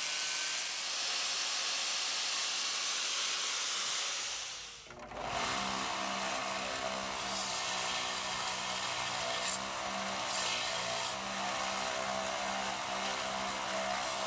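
Power sander grinding a steel arrowhead, a steady hiss. It breaks off about five seconds in, then resumes with a low pulsing hum under the hiss.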